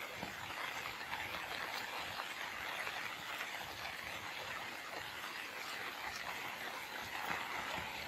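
Storm rain pattering steadily and densely onto standing water and ground.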